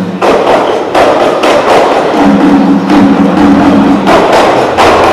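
A group of male voices performing a hadra-style piece: loud, sharp percussive strikes several times a second, joined from about two seconds in by voices holding low notes.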